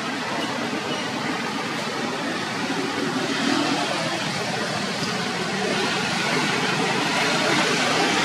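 Steady rushing background noise, even throughout, with no distinct calls or knocks standing out.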